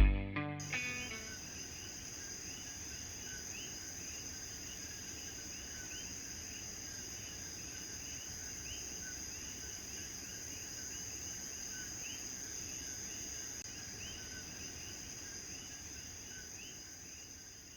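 Night chorus of insects with a steady high-pitched trill, and tree frogs, typical of the Puerto Rican coquí, chirping repeatedly about twice a second. The last notes of a guitar ring out at the start, and the chorus fades out near the end.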